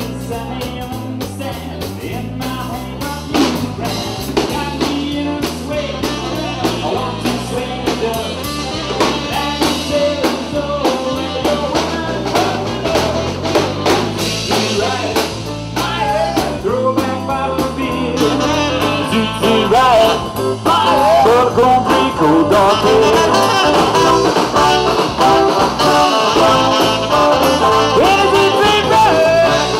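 Live swing band playing: a man singing over electric guitar, bass and drums. The band gets louder about two-thirds of the way through.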